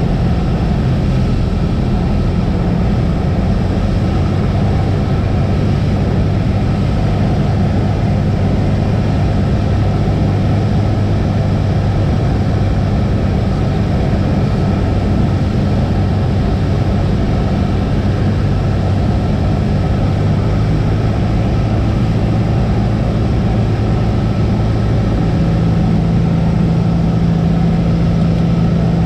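Cessna 172's piston engine and propeller running steadily with a constant drone, the engine note shifting slightly near the end.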